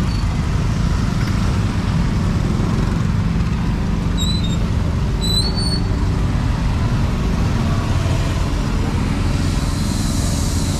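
Busy market street ambience: motor traffic running nearby as a steady low rumble, with a few short faint high chirps about four to six seconds in.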